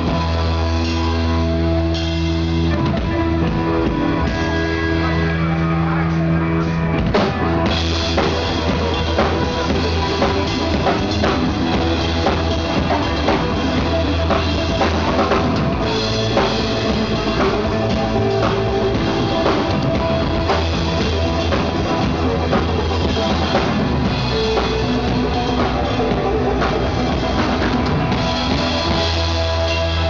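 Three-piece rock band playing live in an instrumental stretch, with the drum kit prominent over held bass notes and guitar.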